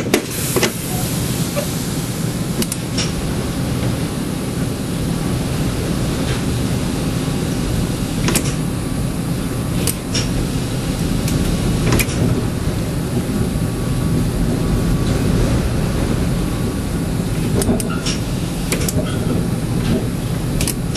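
Tram running: a steady low rumble, broken by sharp clicks and knocks every few seconds.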